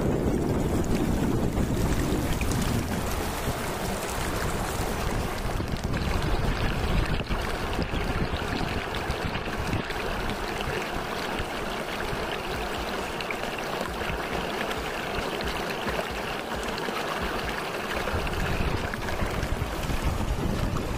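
River water flowing steadily: a constant, even rush of water with an uneven low rumble underneath.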